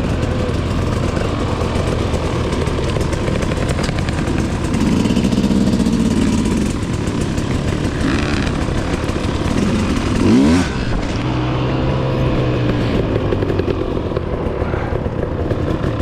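Dirt bike engine running on the trail, its revs rising and falling as the throttle is worked, with a sharp rev up and down about ten seconds in.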